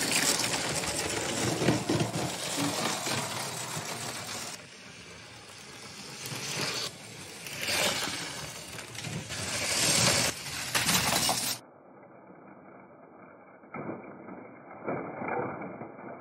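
Motorised Lego trains rattling along plastic track, the clatter swelling as a train passes close by. Near the end comes a duller clatter of plastic bricks from the crash.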